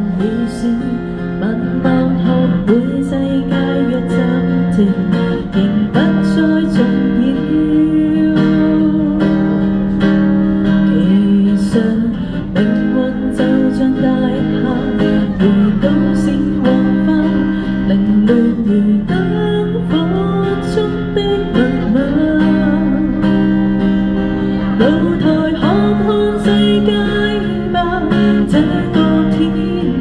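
Acoustic guitar strummed through a song, with a woman singing over it at times.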